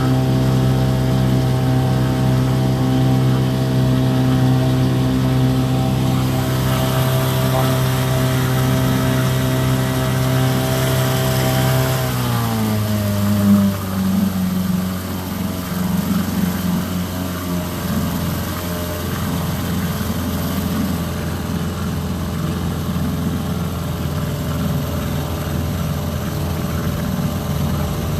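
A boat's motor runs steadily at speed, then is throttled down about twelve seconds in, its pitch falling, and keeps running at a low, rough idle.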